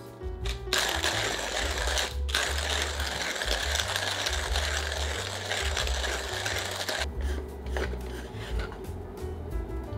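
Hand-cranked manual coffee grinder with a wooden body grinding coffee beans: a steady grinding with a short break about two seconds in. It stops about seven seconds in. Background music plays under it.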